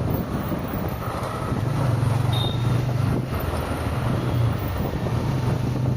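Road noise from a car driving in traffic, with a steady low engine and tyre hum that swells and dips.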